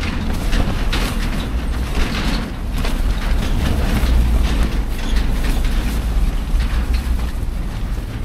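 Strong gusting wind buffeting a tent, the fabric flapping and cracking irregularly over a deep rumble of wind on the microphone.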